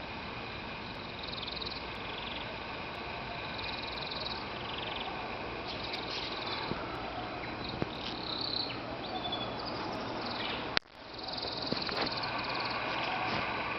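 Canaries singing in rapid, repeated trills over steady background noise. A sharp click comes about eleven seconds in, with a brief drop in sound just after it.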